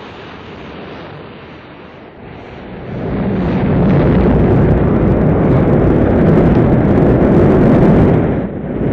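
Rocket engines firing at liftoff: a dense rushing rumble that grows much louder about three seconds in and stays loud, with a brief dip near the end.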